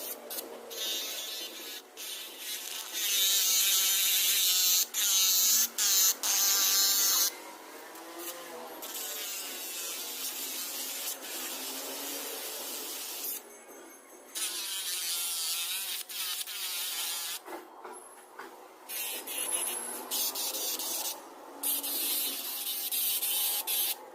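Homemade angle grinder driven by a 775 DC motor, running with a high insect-like whine. It stops and starts and shifts in speed, and it gets much louder and harsher between about three and seven seconds in.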